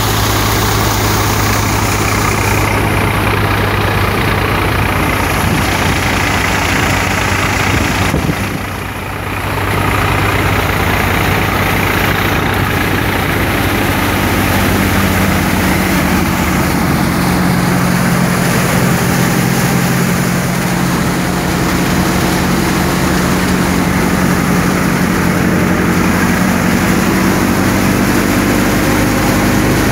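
Tractor-powered multi-crop thresher running under load: a loud, steady machine drone of the threshing drum, fans and belt drive over the tractor's engine. About halfway through, a stronger low steady hum comes in.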